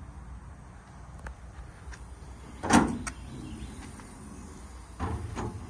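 Side compartment door of a truck service body being unlatched and swung open: a loud latch clack about halfway through with a smaller click right after, then a quieter knock near the end.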